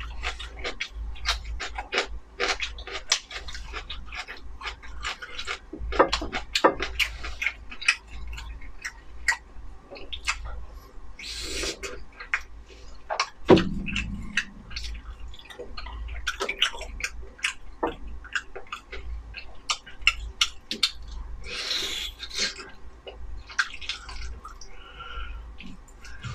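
Close-miked eating: wet chewing with many sharp mouth clicks and smacks, two short slurps, and a single knock about halfway through.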